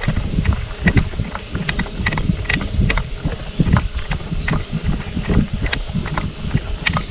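Footsteps on a hard path at a brisk walking pace, about two to three steps a second, with wind rumbling on the microphone.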